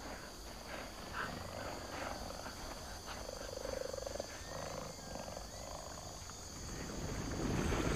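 Faint wild-animal ambience: a brief low, pulsing big-cat call about three seconds in, over a steady high insect-like hum and a few thin whistled calls.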